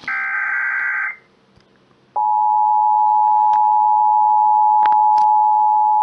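Emergency Alert System transmission over FM radio. It opens with a burst of about a second of shrill, warbling SAME digital header data. After a gap of about a second comes the EAS two-tone attention signal, 853 Hz and 960 Hz sounded together, which starts about two seconds in and holds steady and loud, announcing the next severe thunderstorm warning.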